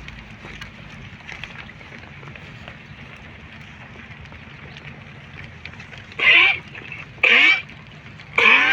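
Sheep bleating: three short, loud calls with a wavering pitch, about a second apart, starting about six seconds in, over a low steady hum.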